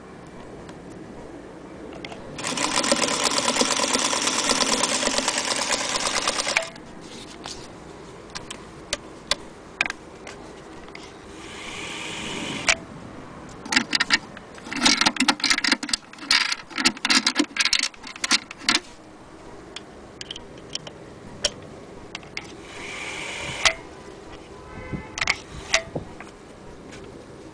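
Singer Featherweight 221K sewing machine running on its electric motor at speed for about four seconds, then in shorter runs, with a quick string of brief starts and clicks in the middle.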